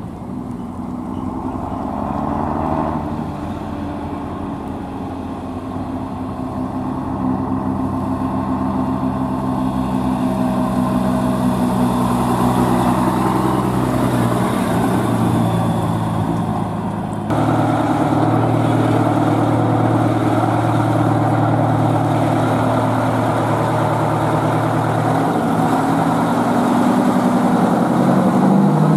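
Vintage Scania tipper truck's diesel engine running as the truck drives slowly past, with its note climbing as it pulls. About halfway through this gives way abruptly to another large truck engine running steadily.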